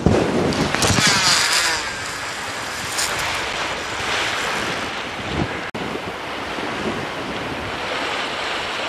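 Sea surf washing against shore rocks, with wind buffeting the microphone. About a second in, a brief whirr and swish as a long cast goes out and line pays off the reel.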